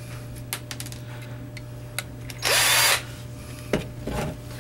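Cordless drill-driver spinning a small screw out of a cell phone's casing in one short burst of about half a second, about two and a half seconds in, its motor whine rising as it spins up. A few light clicks of the parts being handled come before and after.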